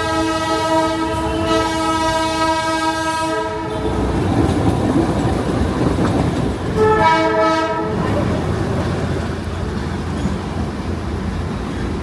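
Darjeeling Himalayan Railway toy train's horn sounding a long blast that ends about four seconds in, then a second, shorter blast about seven seconds in, over the steady running noise of the train on the narrow-gauge track.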